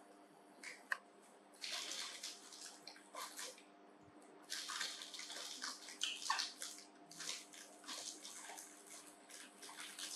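Crackly rustling of a plastic snack packet, in three bursts of about two seconds each, over a faint steady hum.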